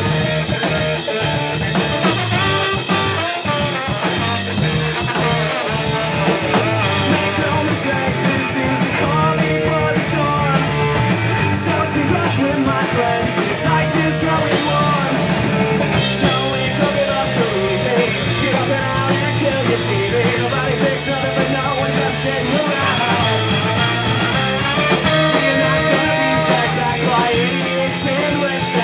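Live ska-punk band playing loudly without a break: electric guitar, bass guitar and drum kit.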